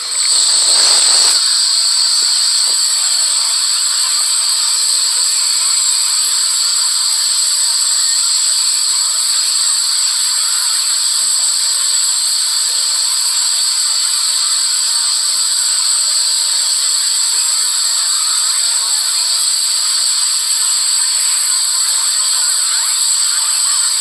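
Children's cartoon song audio sped up so many times and layered that it has smeared into a loud, steady hiss with high, constant whistling tones. There is a brief louder burst at the start.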